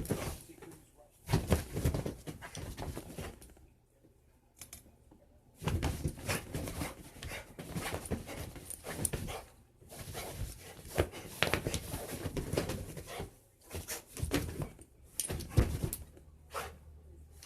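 A dog scrambling about and panting while chasing a laser pointer's dot, with scratchy, clicking movement noise coming in bursts broken by several short pauses.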